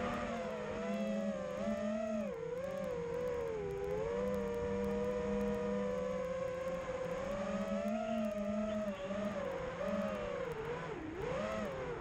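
The brushless motors and propellers of an FPV racing quadcopter, heard from its onboard camera: a whine of several close pitches that rises and falls over and over as the throttle changes, with a deeper drop a little before the end.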